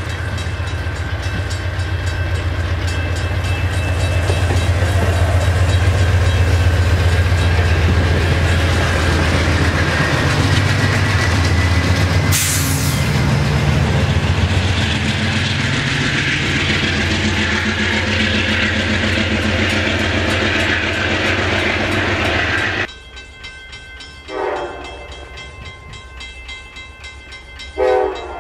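Amtrak diesel locomotive passing close with a loud, deep engine rumble, then its passenger cars rushing by, with a sharp crack about halfway through. The sound cuts off abruptly near the end, and two short horn blasts follow from a train still far off.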